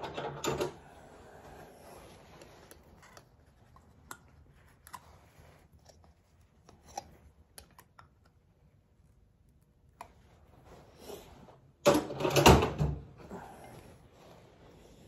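Small clicks and taps of pliers working a thin metal mason jar lid, squeezing the wick hole tighter around a cotton wick, with a louder burst of clattering handling noise about twelve seconds in.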